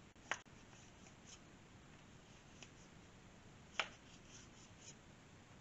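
Metal parts of a disassembled revolver and a cleaning rod being handled on a workbench: two sharp clicks, one just after the start and one about three and a half seconds later, with a few faint light ticks in between.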